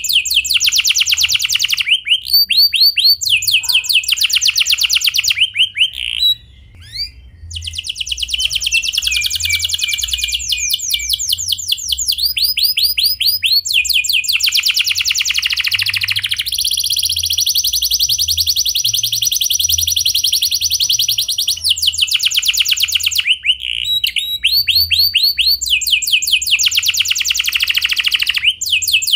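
Domestic canary singing a long, clear rolling song: phrases of rapidly repeated trilled notes that change pattern every second or two. There is a brief break about six seconds in and a long held steady trill in the middle.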